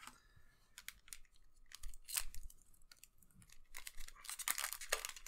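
Foil trading-card booster pack wrapper crinkling as it is taken from the box and handled. From about four seconds in it becomes a dense, louder crinkling and tearing as the pack is torn open.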